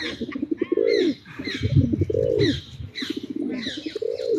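Pigeons cooing, about four rising-and-falling coos roughly a second apart, with small birds chirping higher up.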